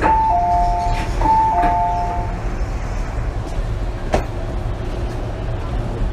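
A two-note falling chime from an MTR M-Train's PA system, sounded twice about a second apart, over the steady low rumble of the train's onboard equipment. A single sharp click about four seconds in.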